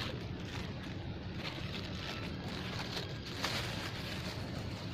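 Wind on the microphone: a steady low rumble, with a few brief rustles about a second and a half, two and a quarter, and three and a half seconds in.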